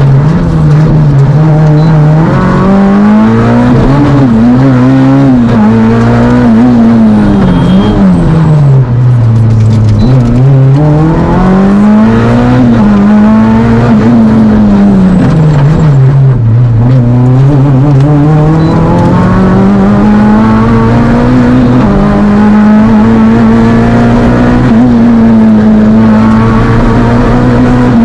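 Fiat Panda Kit Car rally engine under hard driving. The revs climb and fall over and over, dropping low around ten and sixteen seconds in, then holding steady and high near the end.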